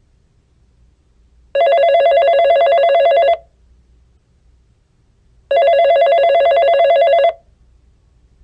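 Telephone ringing: two rings, each just under two seconds long and about four seconds apart, each a rapid trilling tone.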